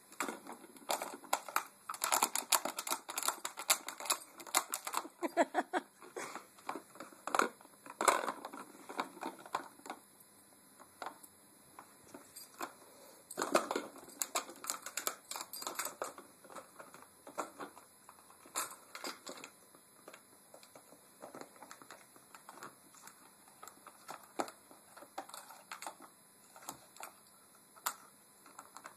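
Hard plastic of a cat track toy clicking and rattling under a puppy's teeth and paws. The clicks come in rapid flurries through the first half and turn sparse after about halfway.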